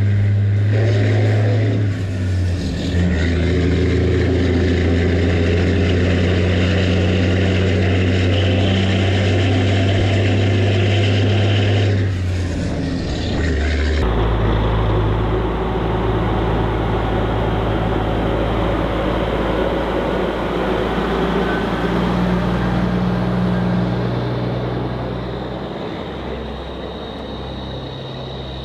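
Semi truck's diesel engine running with a steady, deep hum that changes abruptly twice, about three and fourteen seconds in, as the sound cuts between recordings.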